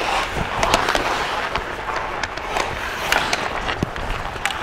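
Ice hockey skate blades scraping and carving on rink ice, with sharp clacks of sticks and pucks several times.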